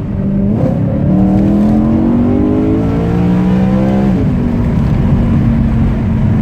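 BMW M3 engine accelerating, heard from inside the cabin with the windows open: the revs climb steadily for about three seconds, then drop back abruptly and the engine runs on steadily.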